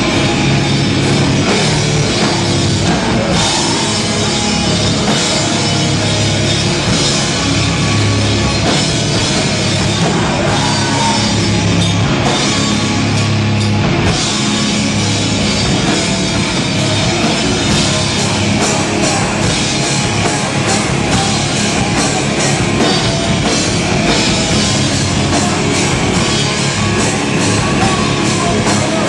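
Hardcore band playing live: loud, continuous full-band rock with a drum kit.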